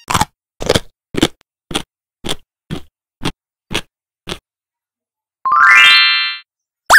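Cartoon eating sound effects: nine short chewing noises, about two a second. Then a rising musical glide that holds briefly, and a wobbly boing starting near the end.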